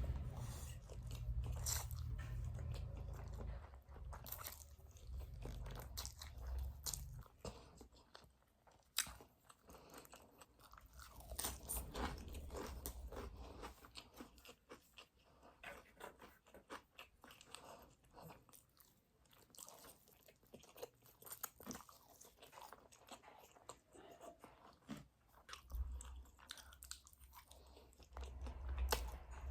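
Close-miked eating of spicy noodles: chewing and biting with many short, sharp mouth clicks throughout, and a low rumble at the start and again near the end.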